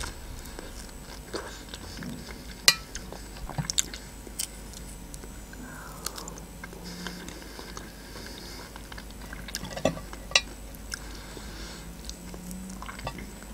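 Chewing of fresh strawberries dipped in melted chocolate, with wet mouth sounds and scattered sharp clicks, the loudest about two and a half seconds in.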